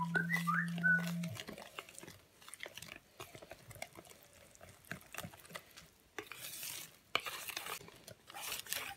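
A wire whisk beating cake batter in a plastic bowl: light, irregular clicks against the bowl, with louder swishing strokes in the last three seconds. A steady low hum sounds for the first second or so.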